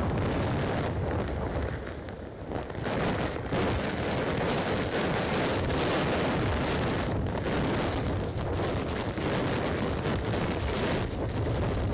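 Hurricane-force wind gusts battering the microphone in a deep, steady rumble, with torrential rain driving down; the gusts ease briefly about two seconds in.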